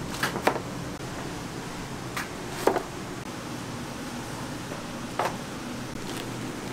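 Metal baking sheet pans of roll-cake batter knocking against each other and the stainless-steel table as they are set down and stacked: a few sharp knocks, some in pairs, over a steady background hum.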